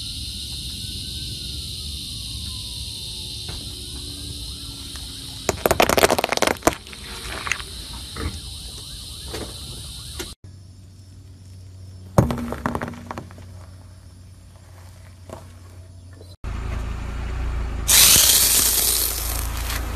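Car tyre rolling over a pile of paintballs, bursting them in a quick cluster of pops about six seconds in, followed by scattered crackles. After abrupt cuts, a block of white foam is crushed under a tyre near the end with a loud crunching.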